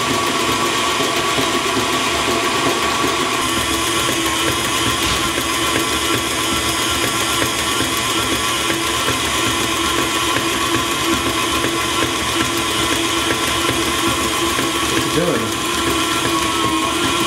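KitchenAid Ultra Power tilt-head stand mixer running steadily, its flat beater turning through chocolate cake batter in the steel bowl: a constant motor and gear whine.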